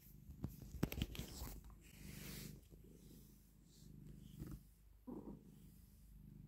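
Domestic cat purring in slow swells while being brushed, with a soft scratchy rustle of the wooden glossing brush stroking through its fur and a few small clicks about a second in.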